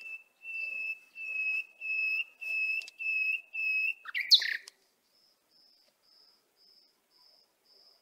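A bird calling: a run of about seven evenly spaced whistled notes, each held on one steady pitch, then a louder, sharper chirp about four seconds in, followed by fainter, higher notes at the same pace.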